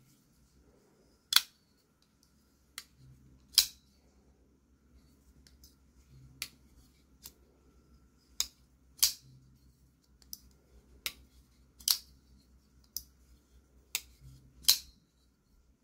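Spyderco Shaman folding knife being opened and closed in the hand, giving about a dozen sharp metallic clicks at uneven intervals as the blade snaps open and shut and the compression lock engages and releases.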